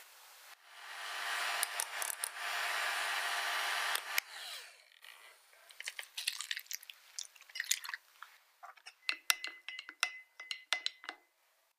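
A steady hiss for about three and a half seconds, then a run of light clicks and taps as a silicone spatula stirs a milky liquid in a glass Pyrex measuring jug, the glass ringing faintly under some of the taps.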